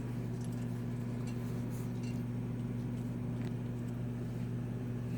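Pellet furnace's fan motor running with a steady, even hum, with a few faint light clicks and clinks now and then.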